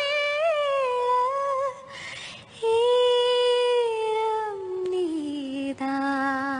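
A woman's voice humming a slow melody without words and without accompaniment, in long held notes with vibrato. There is an audible breath about two seconds in, and the line slides down to a lower held note near the end.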